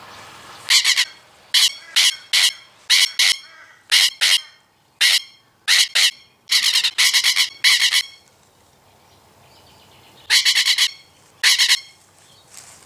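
A bird giving loud, harsh squawks in short bursts. The calls come in rapid clusters, then stop for a couple of seconds, then come again briefly.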